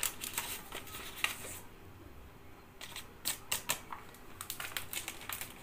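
Scattered light clicks and taps of kitchen handling at a plastic mixing bowl as more starch is added to a cutlet mix: a cluster in the first second and a half, a short lull, then another cluster around three to four seconds in.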